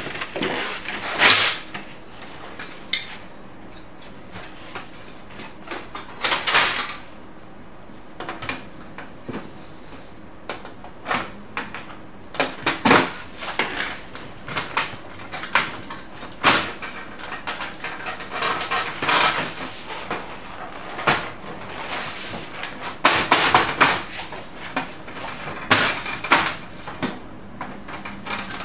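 Plastic covers of an HP LaserJet P3005 laser printer being fitted back onto the casing by hand: irregular clicks, knocks and sliding, rubbing scrapes.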